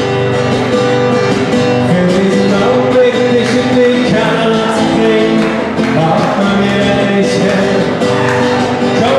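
Acoustic guitar strummed in a live song, with a man singing along.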